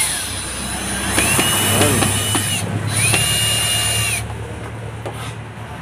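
Stanley cordless drill driving a screw into a headrest mounting bracket on a van seat back. There are two runs of motor whine, each about a second long, each spinning up and winding down.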